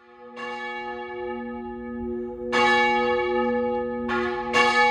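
Church bells ringing: four strikes, the first about half a second in, then two close together near the end, each leaving a long ringing tone that carries on under the next.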